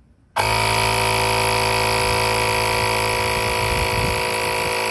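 Cordless air compressor built into a LOKITHOR JP400 jump starter switching on suddenly about half a second in, then running with a steady loud hum while inflating a car tire toward a 34.5 psi preset.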